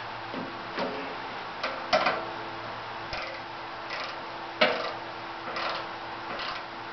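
Irregular clicks and scrapes of a flexible dust collector hose being fitted onto the port on a Woodmaster planer-molder's hood, the loudest about two seconds in and again just before five seconds, over a faint steady hum.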